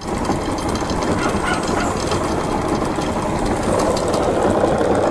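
Small homemade engine running with a rapid, steady clatter that shakes the bench during a vibration test.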